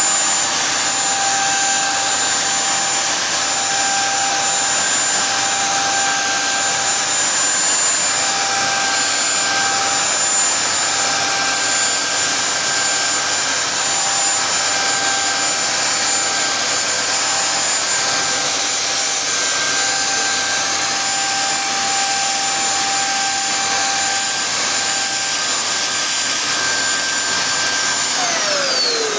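Electric HawkForce paint spray gun running steadily as it sprays ceiling paint: a motor whine over a strong airy hiss. Near the end it is switched off and the whine falls in pitch as the motor winds down.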